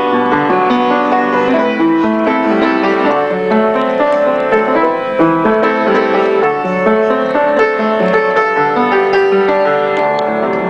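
Piano played by hand: a song of overlapping held notes and chords at a steady pace, with no singing.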